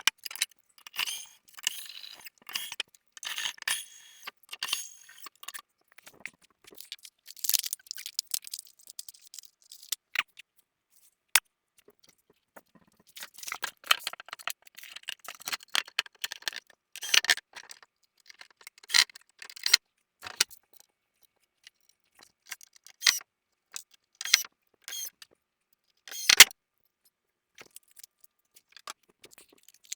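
Small metal hardware and wooden toy-chest parts being handled during assembly: scattered clinks, rattles and clicks in irregular clusters, with a single sharp click late on.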